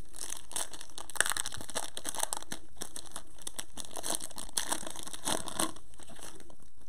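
Foil wrapper of a Panini Prizm basketball retail pack crinkling and tearing as it is pulled open by hands in disposable plastic gloves. The crackling is quick and uneven, with a sharp crackle about a second in and another flurry between four and six seconds.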